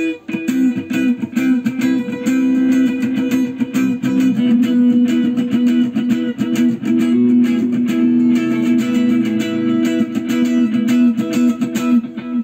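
Electric guitar (Ibanez RG) played through a Boss GT-1000 multi-effects processor on a delay patch: a fast run of picked notes over ringing lower notes.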